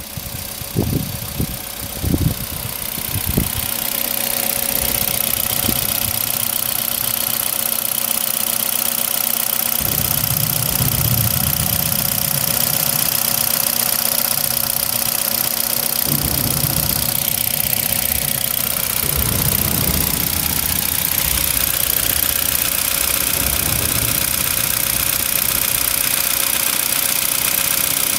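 Hyundai Accent's 1.6-litre four-cylinder petrol engine idling steadily, filmed close up in the open engine bay, after a few knocks in the first few seconds.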